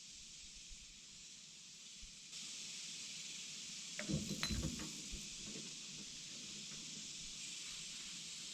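A few metallic clinks and knocks from hub parts and tools being handled, bunched about four seconds in, over a steady faint hiss.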